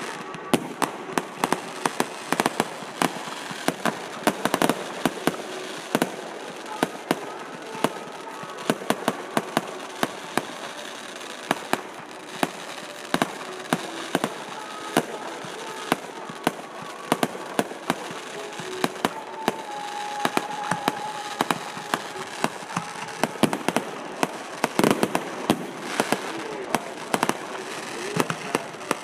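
Aerial fireworks display of single and multishot effects: many sharp bangs and pops, often in quick clusters, one after another with hardly a pause.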